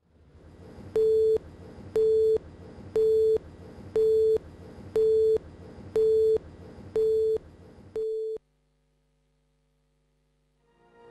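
Countdown leader beeps: eight short beeps at one steady mid pitch, one each second, over a faint hiss. The last beep cuts off about eight seconds in and near silence follows.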